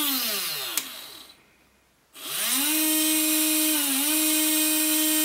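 Small toy DC motor and plastic gearbox whining under battery power. The whine winds down and stops soon after the start, then about two seconds in it spins up again to a steady whine that dips briefly near the middle.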